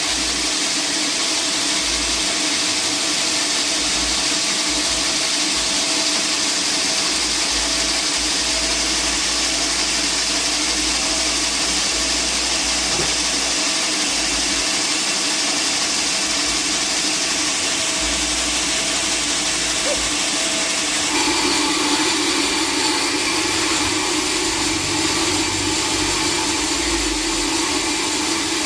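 Sawmill machinery running steadily, with a sudden change in its tone about 21 seconds in.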